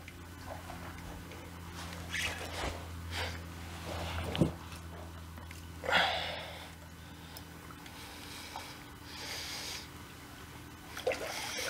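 A person sniffing a few times, with small clicks and knocks, over a steady low hum.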